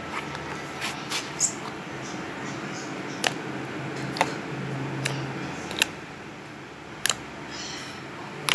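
Butter slime squished and poked by fingers, giving sharp irregular clicks and pops about once a second as air pockets burst, over a steady low hum.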